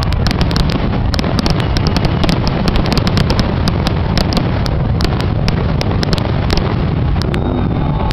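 Fireworks finale: aerial shells bursting in rapid succession, many sharp bangs and cracks close together, thinning out near the end.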